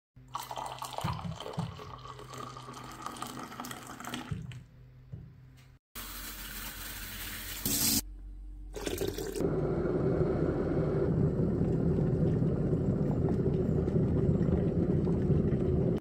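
A spoon whisking instant coffee and sugar in a glass for the first few seconds. Then water runs steadily from a tap into an electric kettle, a rushing fill that is the loudest sound and lasts from about nine seconds to the end.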